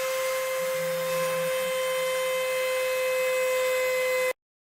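Mini CNC machine's stepper motors whining with one steady tone while driving an axis, cutting off suddenly near the end.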